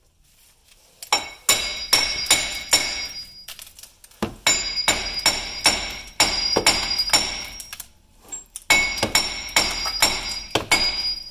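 Three runs of hammer blows on steel, about three a second, each with a bright metallic ring. A seized hub bearing is being knocked loose from its mounting.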